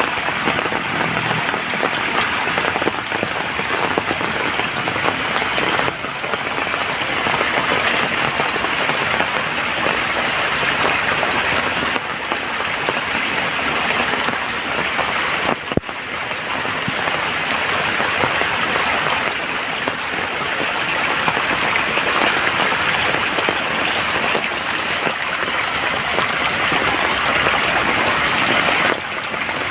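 Steady heavy rain falling, an even, dense hiss of raindrops with a brief dip in loudness a little past halfway.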